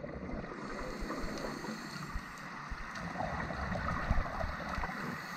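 Muffled underwater ambient noise picked up by a dive camera: a steady low rumble of water with faint crackling and occasional soft clicks.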